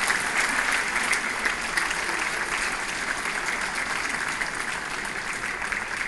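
Audience applauding steadily, the clapping easing off gradually toward the end.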